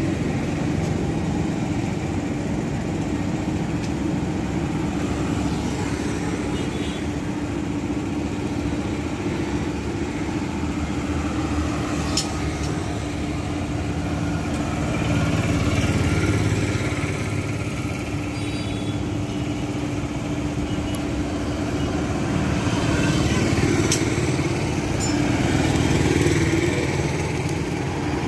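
A small engine idling steadily, growing louder for a few seconds around the middle and again near the end.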